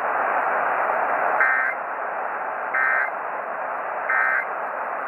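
Emergency Alert System end-of-message data bursts: three short warbling digital tone bursts about one and a half seconds apart, signalling the close of the alert test. They play over steady radio hiss, heard through a narrow radio band.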